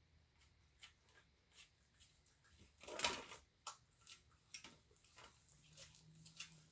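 Bobcat chewing raw chicken legs: scattered sharp crunches and clicks of teeth on bone, with one louder, longer crunch about three seconds in.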